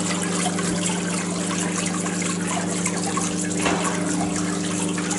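Water trickling and running down the face of a water sculpture, a steady wash of water with a low steady hum underneath.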